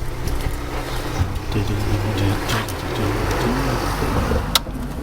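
A motor vehicle engine running steadily, with a single sharp click near the end.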